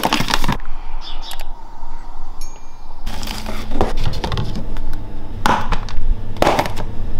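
Kitchen containers (a salt shaker, a spray bottle and a bag of protein powder) being taken from a cupboard and set down one by one on a glass chopping board: a handful of short clinks and knocks, with rustling in between.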